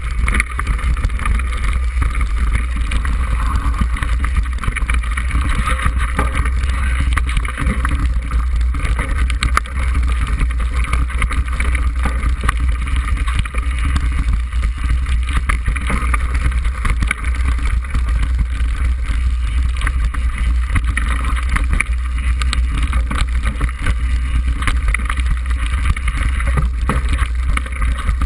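Wind buffeting the microphone of a bike-mounted camera during a fast mountain-bike descent: a steady loud rumble, with frequent small knocks and rattles from the bike jolting over a rough grassy track.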